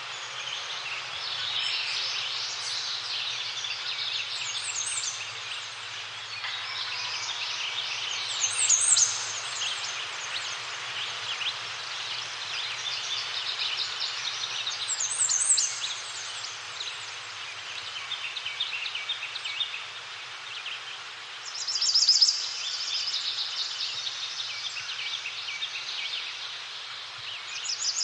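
Chorus of songbirds, many overlapping chirps and trills. High quick note runs come several times, and a loud trill bursts out about three quarters of the way through and again at the end.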